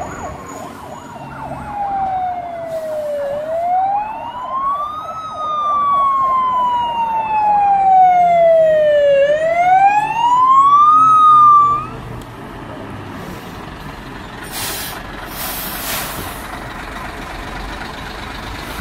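Fire truck siren wailing, its pitch sweeping slowly down and up over several seconds, with a faster warbling tone at the start. The siren cuts off about twelve seconds in, leaving the truck's engine running as it approaches and drives past, with a brief hiss near the end.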